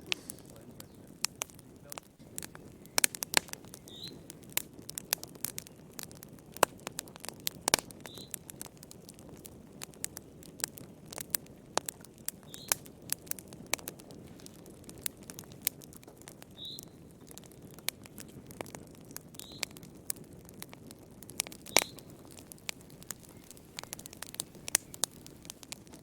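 Wood fire burning in a fireplace, crackling with irregular sharp pops over a low steady rush, and a few brief high squeaks scattered through.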